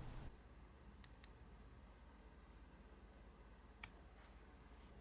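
Near silence: faint room tone with a few soft clicks, two close together about a second in and one near four seconds.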